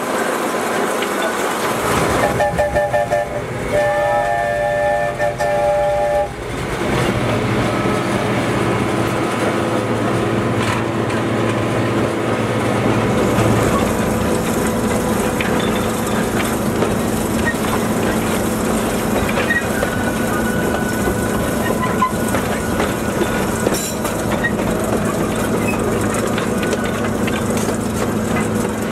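Train whistle sounding a quick run of short toots and then one long blast of several notes together, about four seconds in. After it comes the steady rumble and clatter of the train rolling along the track, heard from the locomotive's cab.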